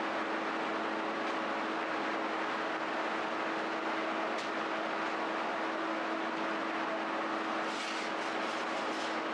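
Bakery machinery running steadily: a constant drone over an even rushing noise, with a few light clatters near the end.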